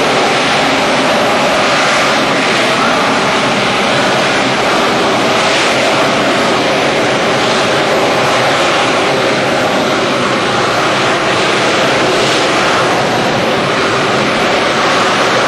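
AV-8 Harrier's Pegasus turbofan jet engine running with a steady, loud roar as the jump jet hovers low.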